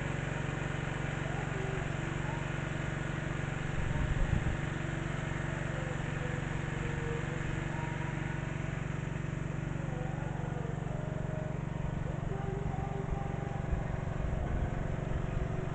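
Small petrol engine of a water-suction pump, converted to run on LPG, running steadily at constant speed, with a brief louder patch about four seconds in.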